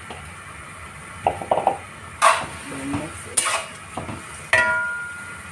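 Metal spatula scraping and knocking against a stainless steel wok while stirring rice and vegetables. There are several clanks from about a second in, and the last one rings briefly.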